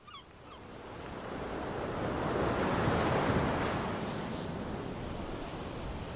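Sea surf breaking on the shore: a rushing wash of waves that swells to its loudest about three seconds in, then slowly eases off.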